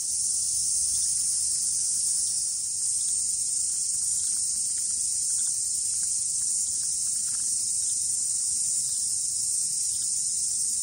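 A steady, high-pitched insect chorus, an unbroken hiss-like drone with no individual calls standing out.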